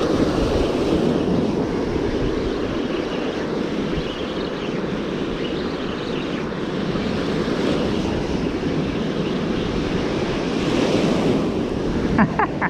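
Surf washing up the beach, with wind buffeting the microphone: a steady rushing noise.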